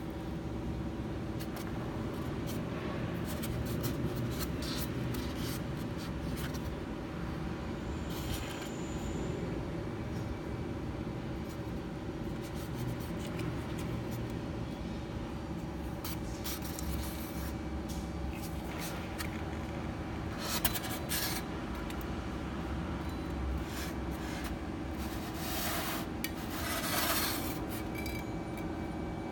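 Handling noise: fishing line and cast-iron weight plates being rubbed and moved over a styrofoam board, with a few short scrapes, the clearest about two-thirds in and near the end, over a steady low hum.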